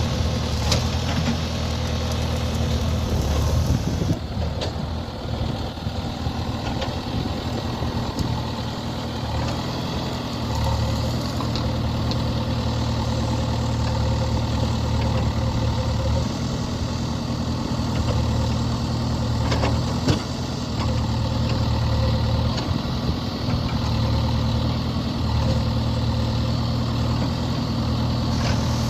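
Diesel engine of a JCB 3DX backhoe loader running steadily, with a few sharp knocks along the way.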